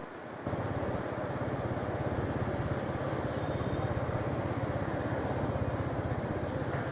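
Motor scooter running at riding speed amid street traffic, a steady engine and road noise with a short dip at the very start.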